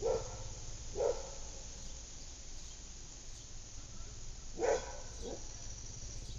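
Three short, sharp animal calls: two about a second apart at the start and a third near the end.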